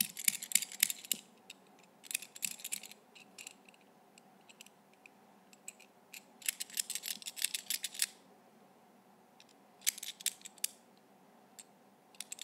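Small metal puzzle lock being banged against a palm, its loose inner parts rattling in four bursts of rapid metallic clicking.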